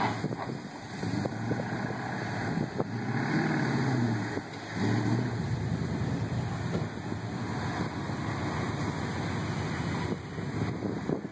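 1979 Ford Bronco's V8 engine revving as the truck works through the woods, the pitch rising and falling and loudest a few seconds in, then running steadier. Wind buffets the microphone.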